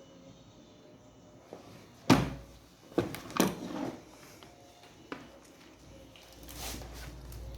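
A few sharp knocks and clacks of hard objects: a loud one about two seconds in, two more about a second later, and a softer swell of noise near the end.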